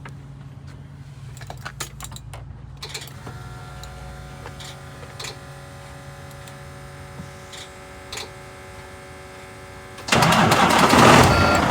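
Volvo semi truck with its ignition on: a steady low hum and a few clicks. About ten seconds in the diesel engine cranks and catches, starting loud, now that the cleaned battery connections deliver power. A short beep sounds as it runs.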